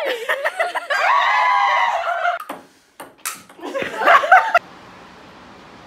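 Excited high-pitched shouting and squealing voices. About two and a half seconds in come a few sharp table tennis ball clicks off the paddles and table, followed by a short burst of yelling that cuts off suddenly.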